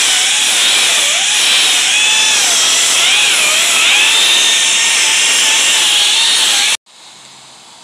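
Handheld wet polisher with a polishing pad running against the edge of a stone countertop, a steady hiss with a whine that wavers in pitch as the pad is worked along the edge, water spraying off the pad. It cuts off abruptly near the end.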